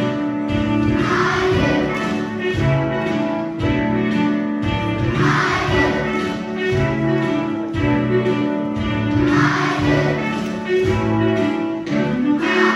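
A children's choir singing with a musical accompaniment: sustained chords over a low note that repeats about once a second, and a crash about every four seconds.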